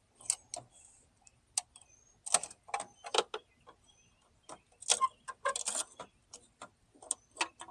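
Irregular clicks and short clattering rattles of bulb sockets and bulbs being worked out of a car headlight housing by hand, busiest about two to three seconds in and again around five to six seconds in.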